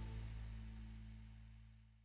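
The last chord of a short outro music sting, its low notes ringing on and fading steadily away.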